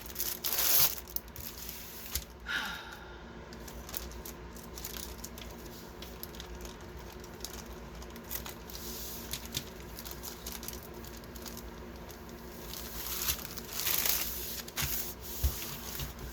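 Plastic packaging of a diamond painting kit being handled, crinkling and rustling in a few short bursts near the start and again near the end, with quieter handling in between.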